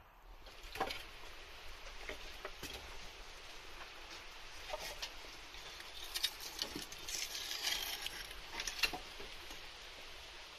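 Fire inside a kiln, heard through its spyhole: a steady rush with scattered crackles and sharp clicks as metal tongs reach in to draw out a test piece during the firing.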